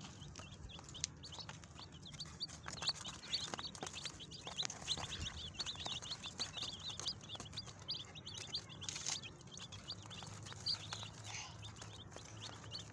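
A brood of chicks peeping, a dense, continuous run of short high-pitched chirps.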